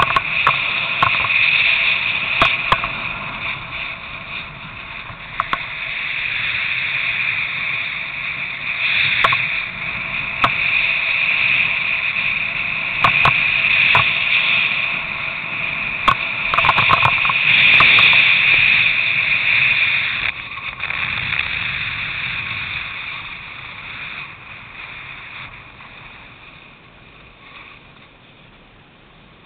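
Snowboard riding noise: a board sliding and scraping over snow, with wind on a head-mounted camera's microphone and scattered sharp knocks. It grows quieter over the last several seconds.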